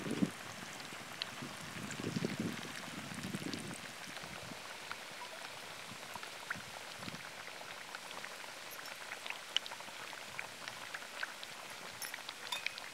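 Battered chicken pakora pieces deep-frying in hot oil: a steady sizzle with many small crackles and pops, with a low rumble now and then in the first few seconds.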